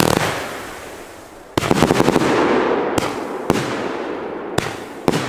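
Firework battery firing into the sky: a loud launch right at the start that fades off, then from about a second and a half in a dense crackle over a steady rush, with sharp single bangs every half second to a second.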